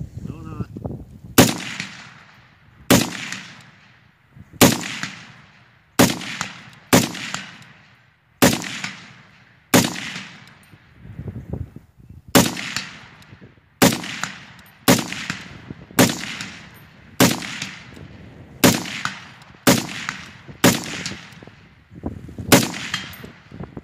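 FN SCAR 17S semi-automatic rifle in 7.62×51mm firing a steady string of about twenty shots, one every second or so. Each shot is followed by a long, fading echo.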